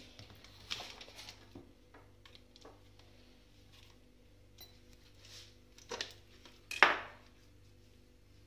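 Scattered clinks and knocks of kitchen vessels, a steel mixer-grinder jar among them, being handled and set down on a countertop; a few light taps in the first second or so, then two louder knocks about six and seven seconds in, the second the loudest.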